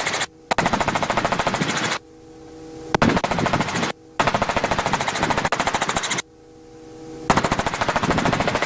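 Robinson R44 helicopter noise heard through the headset intercom: a rapid, even pulsing of rotor chop that comes in bursts of one to two seconds. Each burst cuts in and out abruptly, and between them is a fainter hiss with a steady hum.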